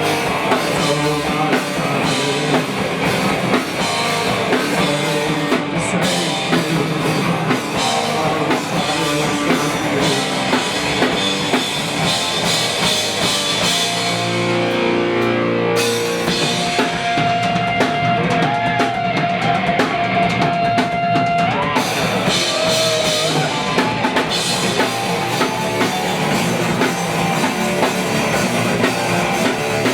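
Rock band playing drums, electric guitar and bass. About halfway through the drums drop out and a guitar holds one long note with a bend for a few seconds, then the full band comes back in.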